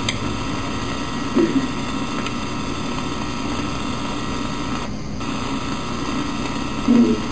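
Steady electrical buzz and hiss, with a short vocal sound about a second and a half in and another near the end.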